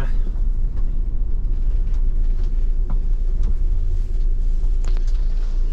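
Low, steady rumble of a bus heard from inside the passenger cabin, with its engine running.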